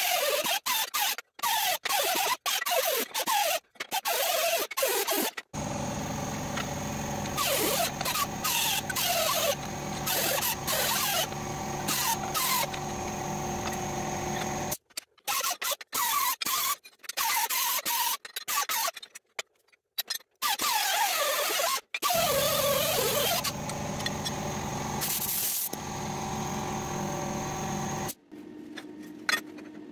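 Small pneumatic die grinder with an abrasive disc cleaning mill scale off steel plate to bare metal ready for welding: a steady grinding whine with a wavering pitch and scraping of the disc on the steel. The sound is chopped into short pieces by many abrupt cuts.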